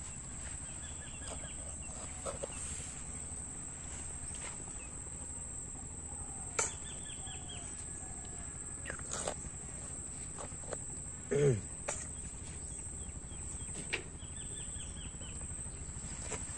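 Steady high-pitched drone of insects, with a few short bird chirps and scattered light clicks. About eleven seconds in there is a brief louder call that falls in pitch.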